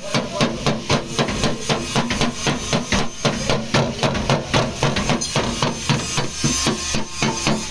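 Hammer beating out a car's sheet-metal rear quarter panel, with quick, even blows about three to four a second.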